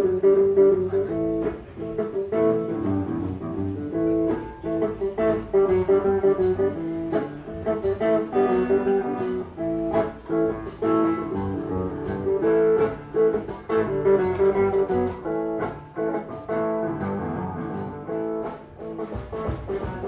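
Music led by a plucked guitar, with a steady run of notes.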